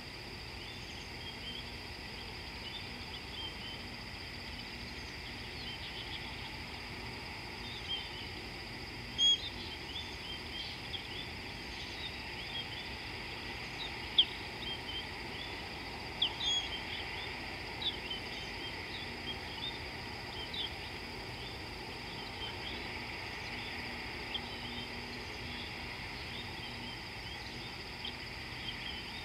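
Outdoor bush ambience: many short bird chirps and calls scattered throughout, with a few sharper, louder calls about nine and fourteen seconds in, over a constant high-pitched hiss.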